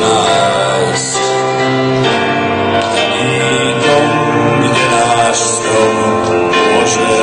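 Live band playing an instrumental passage of a song between sung lines, with long held chords.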